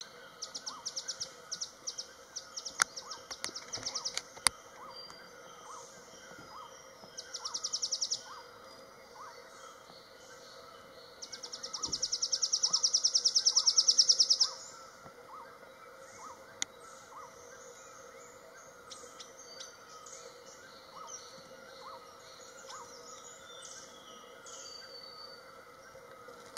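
Beautiful nuthatch calling: its strange, insect-like trill of fast, even pulses, given in several bouts, the longest about three seconds and swelling louder toward its end. A few sharp clicks sound in the first few seconds.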